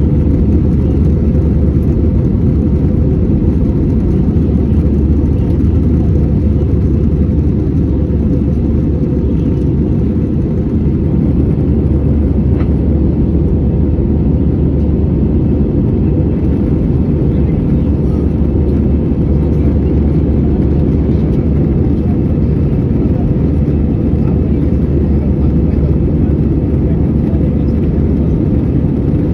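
Steady cabin noise of an Airbus A320-216 climbing after takeoff: a deep, even rumble of its CFM56 turbofan engines and the rushing air, heard from a window seat beside the wing.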